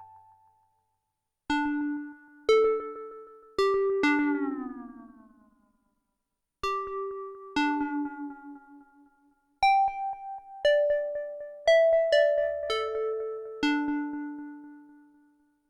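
Synthesizer playing a slow melody of single plucked notes, each dying away after it is struck, with brief pauses between phrases. One note slides downward in pitch about four seconds in.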